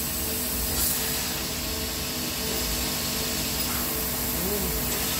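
Fiber laser cutter's assist gas hissing steadily from the cutting head as the laser pierces and cuts sheet metal, over a faint steady machine hum.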